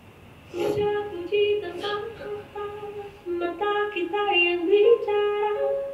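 Female singer singing a pop song over instrumental backing. The music comes in about half a second in, with long held vocal notes.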